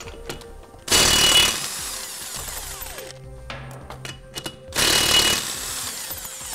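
Cordless impact wrench with a 22 mm socket hammering lug nuts loose on a car wheel: two runs of about two seconds each, each loudest as it starts and easing as the nut breaks free, with a few clicks of the socket between them.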